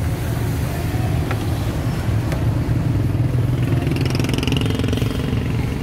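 Steady low rumble of a running vehicle engine, with a higher engine note swelling and fading about three to five seconds in and a few faint clicks.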